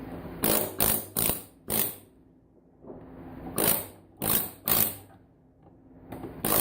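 Pneumatic air chisel (air hammer) firing in short bursts, about three at a time, with pauses between the groups, hammering components such as a transformer off a scrap electronics power board. A low steady hum sounds between the bursts.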